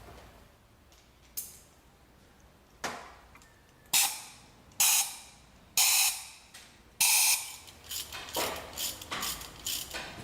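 Sharp metallic clinks, each ringing briefly: metal tools or engine parts being handled and set down. There are about six separate clinks, then a quicker run of lighter clicks and clinks near the end.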